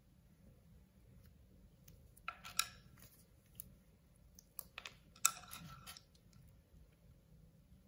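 Small paper sticker sheet rustling and being peeled between gloved fingers, in two short bursts about two and five seconds in. A few light clicks come from a small plastic toy car being handled.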